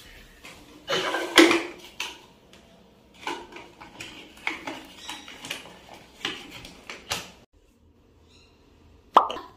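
Handling noises from potato chips and a cardboard chip canister being gathered up off a tile floor: a run of short clatters and rustles, with a quiet pause and then a single sharp knock near the end.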